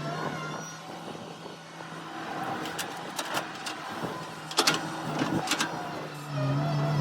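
Excavator's diesel engine running steadily, with several sharp knocks in the middle. The engine grows louder near the end, as if working under load.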